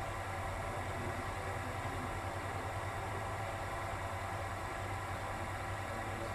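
Steady mechanical hum that holds level throughout, with no bat or ball impacts.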